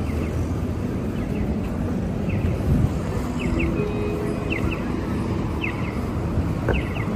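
Busy city intersection ambience: a steady rumble of traffic with short, high chirps now and then.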